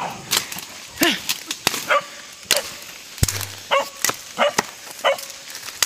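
A dog giving a string of short yelping barks, about eight in a few seconds, each call bending up and down in pitch. There is a sharp crack about three seconds in.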